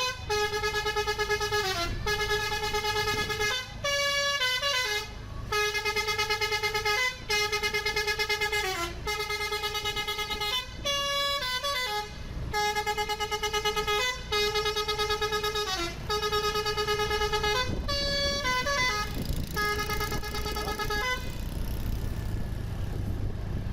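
Bus 'telolet basuri' multi-tone musical horn playing a short tune over and over in phrases of a few notes, some notes sliding in pitch, with brief breaks between phrases. It stops about three-quarters of the way through, leaving a steady low vehicle rumble.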